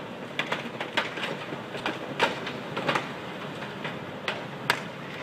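Irregular cracking, creaking and crunching as the steel hull of a turning cement carrier ship grinds into moored motorboats and their pontoon, crushing fibreglass, over a steady hiss of wind and water. The sharpest cracks come a little after two seconds and near the end.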